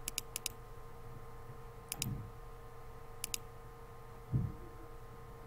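Computer mouse clicking: a quick run of clicks near the start, then single crisp clicks about two and about three seconds in, each a sharp double tick. Under them runs a faint steady electrical hum, and there is a short low thump about four seconds in.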